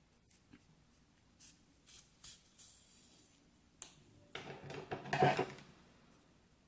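Faint rustling and small clicks of yarn and a small crocheted piece being handled as the yarn tail is pulled through, with a louder stretch of rustling about four to five seconds in.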